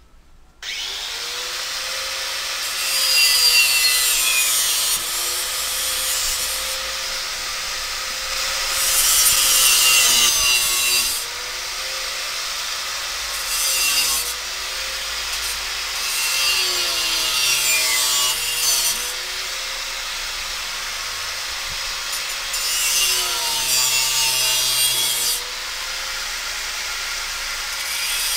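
Angle grinder starting up about half a second in, then grinding the end of a steel bar clamped in a bench vise. Several louder spells come as the disc is pressed into the metal, and the motor's whine dips under the load each time.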